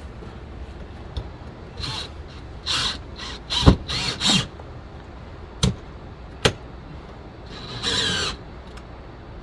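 Power drill driving screws in several short bursts with pauses between them.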